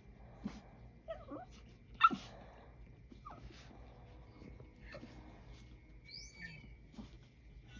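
A small dog in labour making short snorts, sniffs and soft whimpers, with a few brief squeaky whines; a sharp snort about two seconds in is the loudest.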